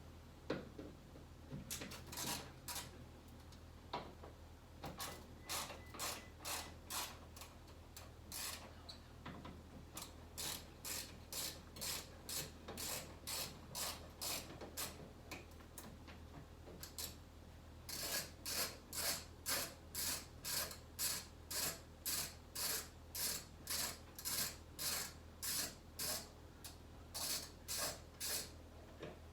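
Hand socket ratchet clicking in runs of strokes, about two a second, as the door hinge bolts on a Jeep Wrangler are worked loose, with a pause in the middle.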